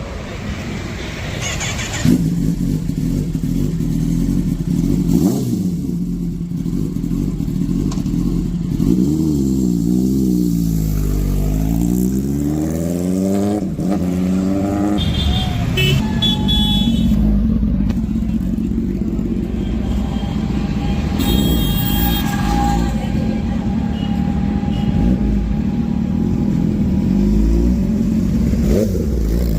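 Kawasaki ZX-10R inline-four engine running through an Arrow aftermarket exhaust. It gets louder about two seconds in, and its revs swing down and up several times around the middle and rise again near the end.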